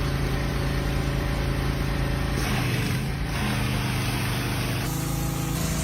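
An engine running steadily under load, its pitch stepping slightly about two and a half and five seconds in.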